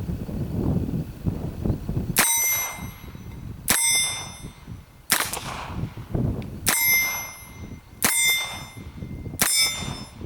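Colt Officer's Model Target revolver in .22 Long Rifle fired six times at a steady pace, about a shot every second and a half. Most shots are followed by a ringing metallic ding.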